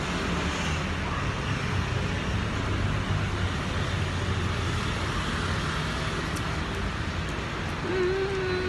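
Steady city traffic noise: a constant rumble of passing road vehicles, with a short held tone near the end.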